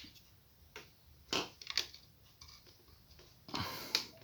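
A few short sharp clicks and a brief rustle of handling: a USB hub's plug being fitted into a laptop's USB port.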